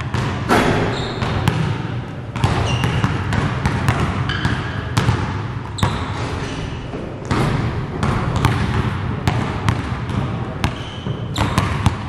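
Basketballs bouncing on a gym floor in irregular, repeated thuds, with short high squeaks between them.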